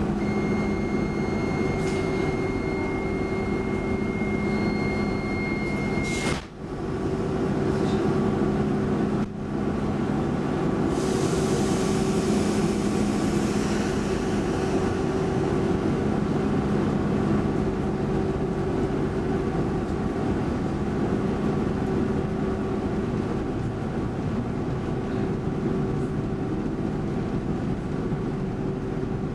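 Cabin noise of a Stockholm commuter rail X10 electric multiple unit running at speed: a steady rumble of wheels on track under a steady electric hum. A thin high whine sounds for the first six seconds, the noise dips briefly twice around six and nine seconds in, and a wash of hiss rises for a few seconds after that.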